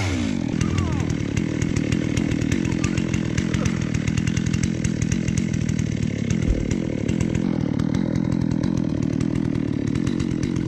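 Holzfforma G660 two-stroke chainsaw, a Stihl 660 clone, running steadily at full throttle on a chainsaw mill while ripping a walnut log into slabs.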